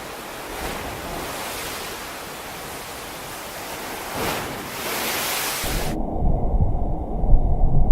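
Storm at sea: a steady rush of wind and breaking waves, swelling briefly a little past four seconds in. About six seconds in it cuts abruptly to heavy wind buffeting the microphone, a loud low rumble in gusts.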